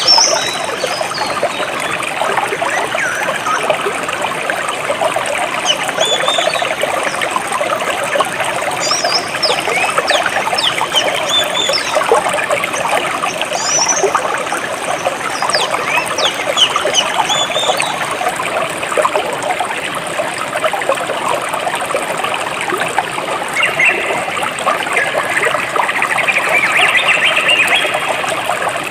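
A small stream of water trickling and babbling steadily, with birds chirping now and then over it and a denser run of chirps near the end.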